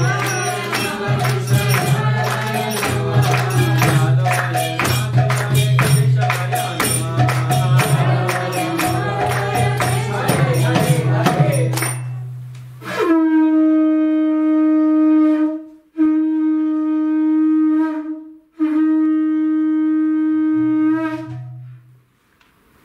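Devotional music with fast jingling hand percussion over a steady drone, stopping about twelve seconds in. Then a conch shell is blown three times, each a long, steady note with brief silences between.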